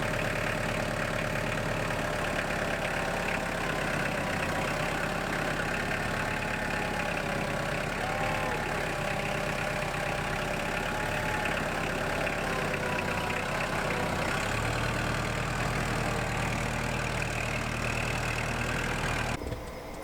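Portable bandsaw sawmill running, a steady engine drone; its low tone shifts about three-quarters of the way through and the sound stops suddenly near the end.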